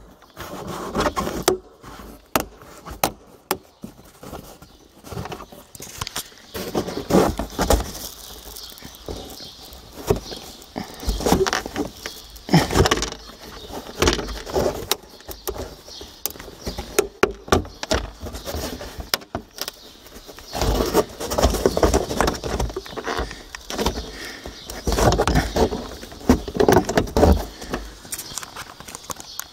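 Plastic interior trim of a BMW E60 being worked loose by hand: a long irregular run of clicks, knocks, scrapes and rustles as panels and their clips are pulled and handled.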